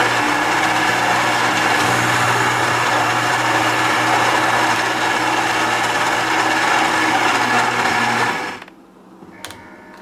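Gaggia Brera super-automatic espresso machine's built-in burr grinder grinding a dose of beans for an espresso shot, a loud steady whir that cuts off after about eight and a half seconds.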